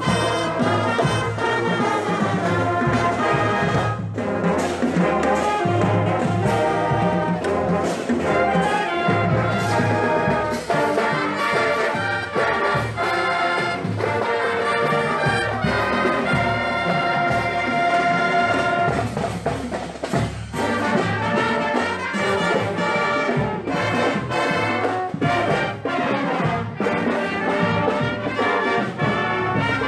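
Marching band playing a brass-led tune, with sousaphones carrying the low part, over a drumline of snare drums, bass drums and cymbals.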